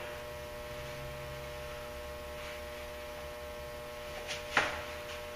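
Steady electrical hum made of several fixed tones, with a brief sharp noise about four and a half seconds in.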